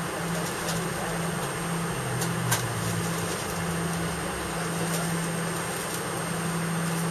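Steady cabin noise of a jet airliner taxiing: the engines at idle and the air-conditioning give an even hiss over a low steady hum. There is a light click about two and a half seconds in.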